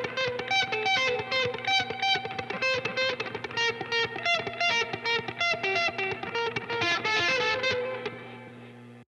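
Electric guitar, a Fender Stratocaster played through a pedalboard of effects, playing a fast melodic line of single picked notes, several a second. Near the end the last note rings out and fades away.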